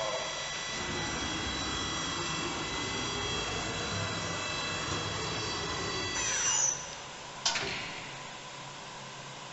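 CNC vertical machining center running, with a steady high spindle whine that spins down in a falling glide about six seconds in. A single sharp clack follows about a second later, and a low machine hum remains.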